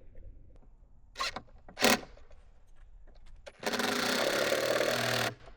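Power driver starting a 3/8-inch by 4-inch lag bolt into a wooden 4x4 post: two short blips, then a steady run of about a second and a half near the end.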